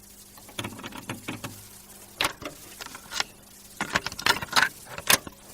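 Irregular sharp taps and knocks, a dozen or so, loudest about two seconds in and in a cluster near the end, over a faint steady hum.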